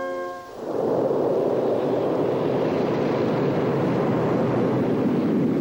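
A held organ chord fades out in the first half second. Then a steady rushing noise of rough sea takes over and holds at an even level.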